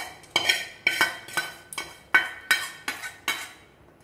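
A steel spoon scraping and knocking against the inside of a stainless steel kadai, about ten quick ringing strokes, as the fried onion and chilli tempering is scraped out of the pan. The strokes stop a little before the end.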